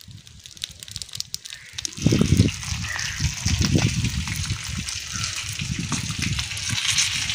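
Vanjaram (seer fish) frying in oil on a tawa over an open wood fire: a steady sizzle, fainter for the first two seconds, joined from about two seconds in by irregular low rumbles.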